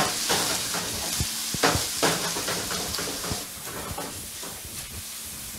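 Squid rings and garlic frying in hot oil in a pan, sizzling steadily, with a few knocks of a utensil against the pan in the first half; the sizzle slowly dies down.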